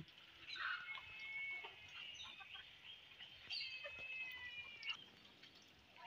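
Faint, high-pitched calls from farmyard poultry: a few held notes in two bunches, about a second in and again from about three and a half to five seconds in.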